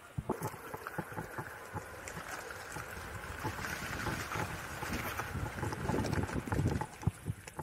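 Acedeck Ares X1 off-road electric skateboard riding over rough ground, with wind buffeting the microphone and frequent irregular knocks and jolts from the bumpy surface.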